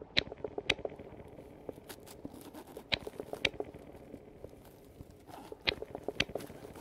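Improvised foley: crisp clicks in pairs about half a second apart, the pair repeating three times, over a low, continuous crackling and crunching.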